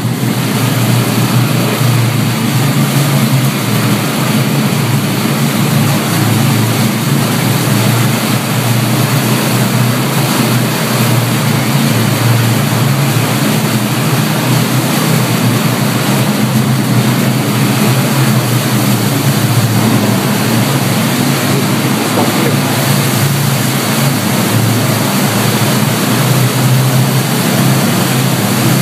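Off-road vehicle engine running steadily at an even pitch while driving, under a loud, steady hiss.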